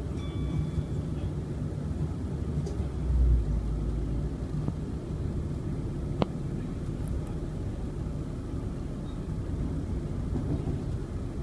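Steady rumble of a passenger train running on the rails, heard from inside the carriage. A heavier low thump comes about three seconds in and a single sharp click a few seconds later.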